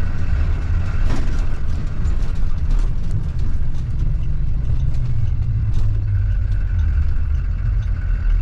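Blue Bird school bus driving, heard from inside the cabin: a steady low engine rumble with a few brief rattles. A thin steady whine fades out near the start and comes back about six seconds in.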